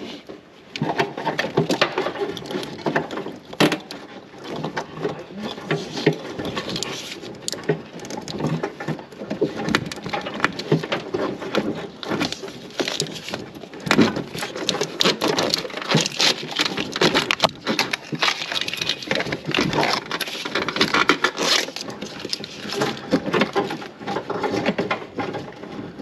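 Corrugated plastic loom of a wiring harness scraping and rustling as it is worked through the firewall hole, a continuous run of scrapes and clicks.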